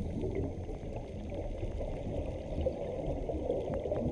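Underwater water ambience: muffled rushing and bubbling water with faint scattered ticks.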